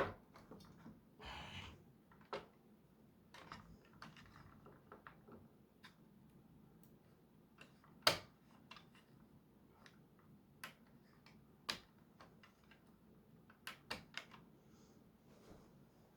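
Scattered clicks and light knocks of small plastic parts being handled and moved inside a partly disassembled Nerf gatling blaster, the loudest a single sharp click about halfway through.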